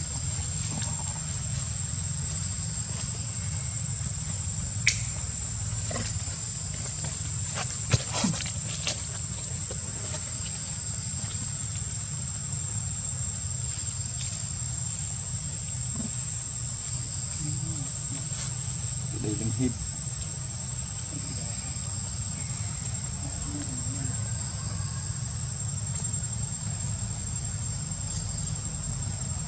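Steady high-pitched drone of insects, with a steady low rumble beneath it. A few sharp clicks come about five and eight seconds in, and a few faint short calls come near the twenty-second mark.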